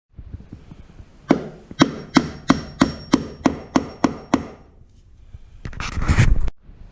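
A hammer driving a nail into wood, with about ten even strikes at roughly three a second, then a short scraping rustle near the end.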